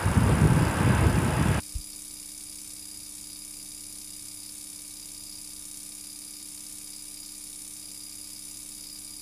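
A loud noisy rumble cuts off suddenly about a second and a half in, leaving a steady electrical mains hum with faint tape hiss, as from a blank stretch of videotape.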